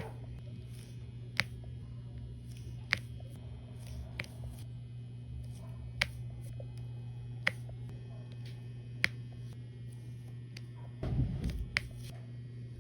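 Glue dots making sharp little pops, one about every second and a half, seven in all, over a steady low hum. A brief low bump, like handling, comes about eleven seconds in.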